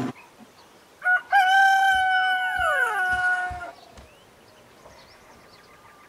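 A rooster crowing once: a short opening note about a second in, then a long held call that drops in pitch as it ends.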